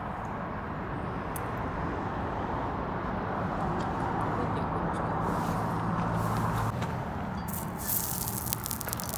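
Meat sizzling on a grill over a campfire: a steady hiss that swells a little, with dense crackling and popping starting near the end.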